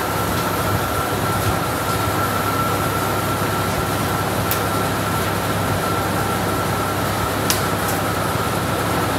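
Steady whirring of a running shop fan, with a thin steady high whine over it. A few light clicks and taps come through, two of them close together near the end.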